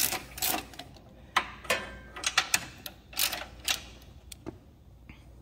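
Ratchet wrench clicking in short, irregular strokes as a battery hold-down bolt is tightened a little at a time.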